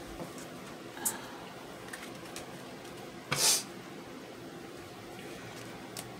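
Cards being handled and laid on a cloth-covered table: a short brush about a second in, a louder swish of cards about three and a half seconds in, and a light click near the end, over a steady low hum.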